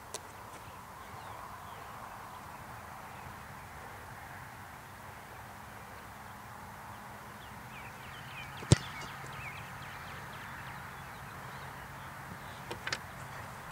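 A single sharp thump of a kicker's foot striking an American football on a field-goal attempt, about two-thirds of the way through. A couple of faint knocks follow near the end.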